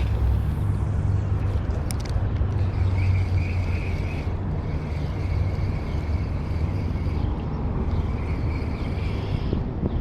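Steady low outdoor rumble, with a faint high whir that comes in about two and a half seconds in, breaks off briefly around four seconds and stops near the end.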